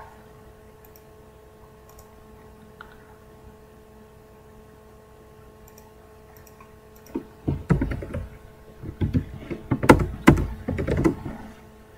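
Typing on a computer keyboard: a quick run of keystrokes starting about seven seconds in, after a few faint mouse clicks over a faint steady hum.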